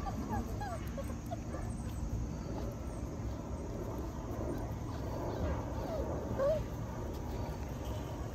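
Six-week-old Labradoodle puppies giving a few short whimpering yips at the start and one more about six and a half seconds in, over a steady low rumble.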